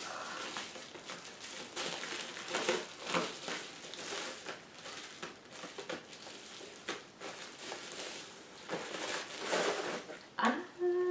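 Packaging crinkling and rustling as it is handled and pulled from a newly unboxed camera, in irregular crackles and scrapes. A short hum of a voice comes near the end.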